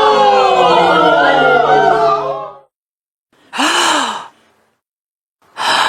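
Surprise reaction sound effects: a crowd of many voices crying out together in overlapping, sliding pitches, which stops about two and a half seconds in. After a pause, one voice gives a short surprised exclamation that rises and falls in pitch, and a quick gasp comes near the end.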